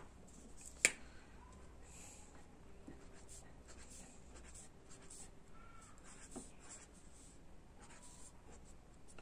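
Felt-tip marker drawing small loops on paper over a clipboard, faint scratching strokes. A single sharp click about a second in.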